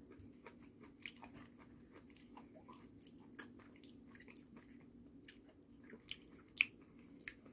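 Close, faint chewing of seasoned pumpkin-seed sprouts (namul), a run of irregular small crunches, over a steady low hum.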